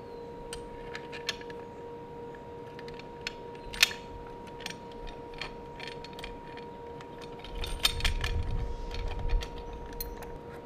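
Small metal clicks and knocks of a chain grinder's vise assembly being fitted onto its base by hand, with a sharp click about four seconds in and a cluster of low handling thumps and clicks near the end. A faint steady hum runs underneath.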